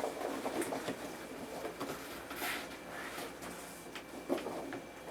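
Polystyrene packing peanuts being poured out of a cardboard shipping box, rustling and clicking as they tumble, with a brief louder hissing swish about halfway through.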